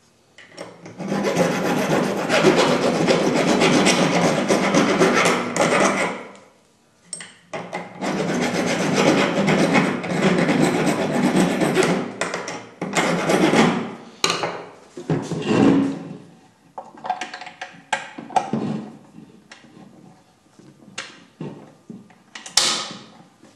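Hand file rasping back and forth on a small part clamped in a bench vise, in two long spells of steady strokes with a short pause between and a brief third spell after. Then scattered light knocks and handling sounds, with one sharper knock near the end.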